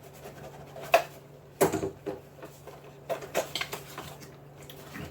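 Close-up eating and handling noises while working through a chocolate bar: a few sharp clicks and smacks, loudest about a second and a half in and again around three to four seconds, over a steady low hum.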